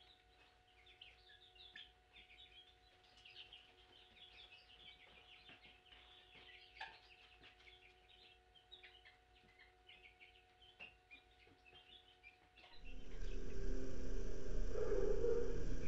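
Baby chicks peeping: many short, faint, high chirps running together. About thirteen seconds in this gives way abruptly to a louder, steady room noise with a low hum.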